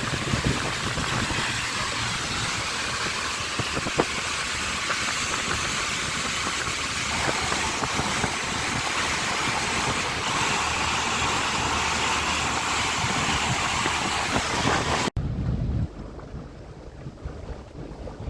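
Motorboat under way: wind buffeting the microphone over the engine and water noise, steady. It cuts off abruptly near the end, leaving a much quieter, faint background.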